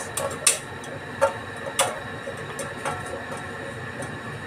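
A metal bowl knocking lightly against the rim of an aluminium cooking pot as chopped vegetables and chicken are tipped in: a few short knocks about half a second to a second apart, over a steady low background noise.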